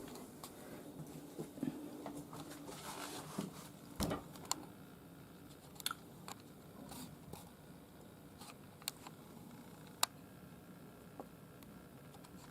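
Faint scattered clicks and small knocks, with the sharpest near the middle and one about ten seconds in, over a quiet room background.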